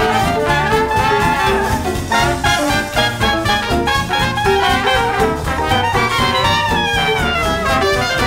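Background music: upbeat jazz with brass instruments playing a melody over a steady beat.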